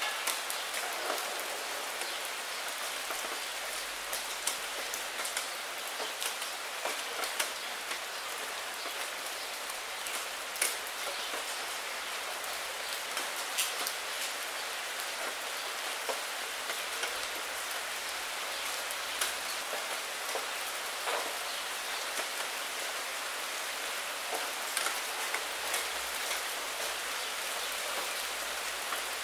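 Steady rain falling on a puddle and wet fallen maple leaves: a constant hiss with many sharp individual drop hits scattered through it.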